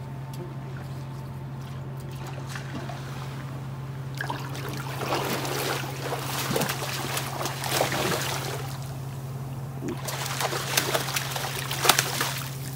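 Hooked red (sockeye) salmon thrashing at the surface close to shore, splashing water in irregular bursts that pick up about four seconds in and again near the end. A steady low hum runs underneath.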